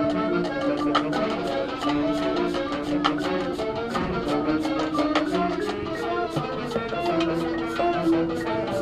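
Marching band playing: long held wind notes over a steady percussion beat.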